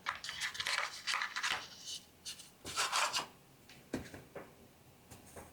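Light rubbing and scraping from handling a small M.2 SSD and fitting it into its slot inside an open laptop, with a few short light clicks about four seconds in.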